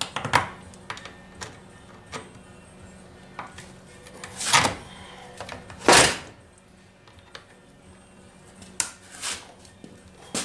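Chainsaw parts and hand tools handled on a bench: scattered light clicks and knocks, with two louder, longer noises about four and a half and six seconds in.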